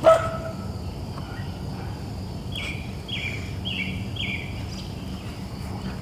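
Outdoor background noise with a bird calling four times in quick succession, short high notes about half a second apart, near the middle.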